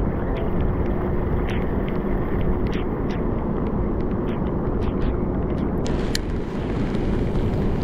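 Wind rumbling on the camera's microphone in the rain, with scattered small taps of raindrops and a faint steady hum underneath.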